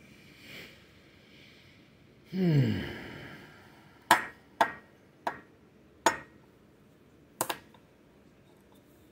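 A man's low vocal sound, like a sigh, sliding down in pitch, then five sharp clicks spread over about three and a half seconds, the last one doubled.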